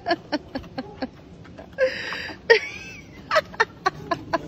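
Rapid clicks and knocks as a golden retriever hauls a big forked branch up onto a wooden deck: its claws and the branch tapping and scraping on the deck boards, about three or four knocks a second. A short human laugh or exclamation comes about two seconds in.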